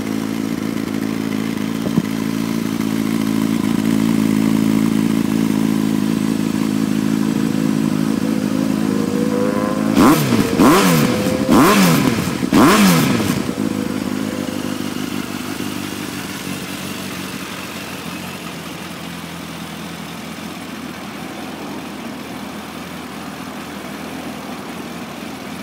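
Yamaha XJR1300C's air-cooled inline-four idling through an Akrapovic slip-on silencer. It is revved in several quick throttle blips about ten seconds in, each rising and falling in pitch, then settles back to a steady idle.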